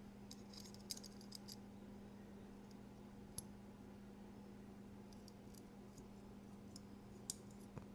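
Faint, scattered clicks of small metal knife parts being handled and set down during reassembly of a folding knife, over a steady faint hum.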